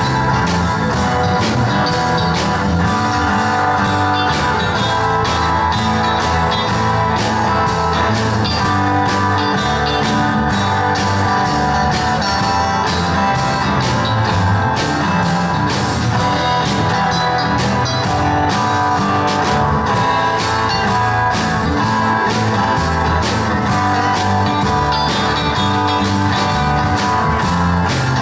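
Live rock band playing an instrumental passage: acoustic guitar strumming and electric guitar over a drum kit keeping a steady beat.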